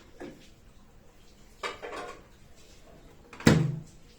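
Kitchen handling noises: a softer knock about one and a half seconds in, then a single loud, sharp clunk about three and a half seconds in.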